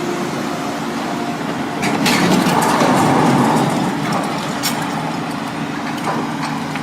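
Heavy engine running steadily under a loud rushing noise, which swells about two seconds in and eases again.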